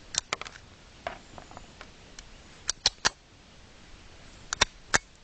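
Sharp mechanical clicks and clacks from a replica Glock pistol being worked by hand, coming in three small clusters, as the jammed casing is being freed.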